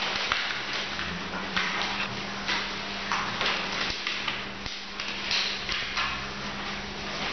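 Sheets of craft paper rustling and being creased in short, scratchy bursts as children fold origami, over a steady low hum.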